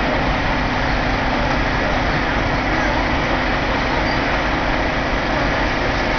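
Fire engines' engines running, a steady drone with a constant low hum and an even hiss over it.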